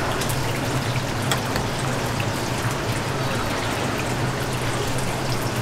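Steady sizzling crackle of food frying in hot oil, over a low steady hum, with a few light clicks.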